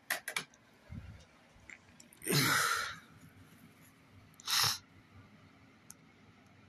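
A few clicks, then two sharp bursts of breath from a person: the longer one about two seconds in, a shorter one about four and a half seconds in.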